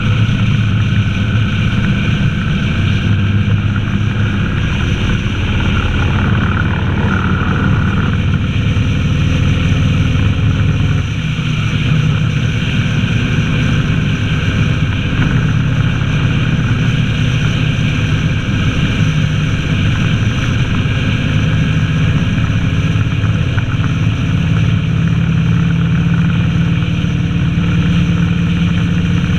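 Honda VTX 1300's V-twin engine running steadily while riding at road speed. The engine note changes about eleven seconds in.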